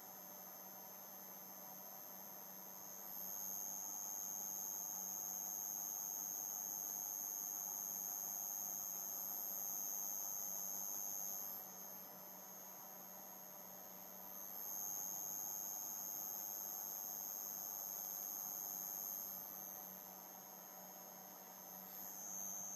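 800-watt prototype sine-wave inverter running: a steady high-pitched electrical whine over a low hum. The whine gets louder twice for several seconds at a time.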